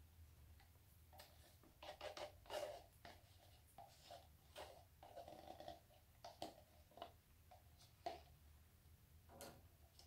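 Near silence with faint scattered taps and rustles of plastic cups being handled as paint is poured from one cup into another.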